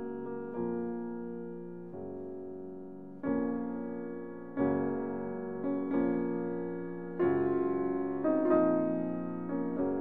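Background piano music: notes and chords struck about every second or so, each left to ring and fade.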